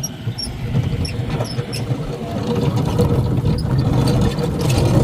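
Riding lawn tractor engine running steadily while towing a string of wobbly train cars, with scattered clanks and faint squeaks from the towed cars and hitches.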